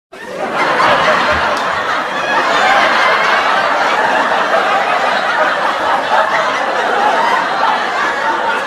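Sitcom studio audience laughing together, a steady crowd laugh that starts abruptly at the very beginning.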